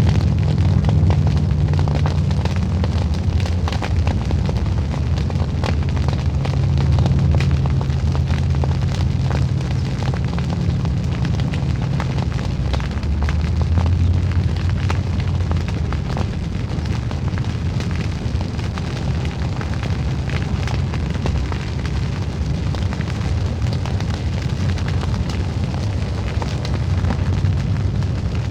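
A burning field, the fire crackling and popping densely over a steady low roar.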